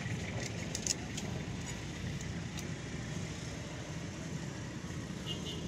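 Steady rumble of road traffic, with a few sharp ticks of a knife scraping scales off a fish on a wooden block, clustered about a second in and once more a little later.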